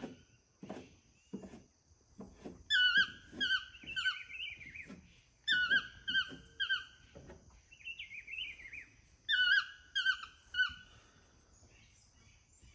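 A toucan calling: three bursts of repeated yelping notes, each note hooking downward in pitch, a few seconds apart. A steady high whine runs underneath.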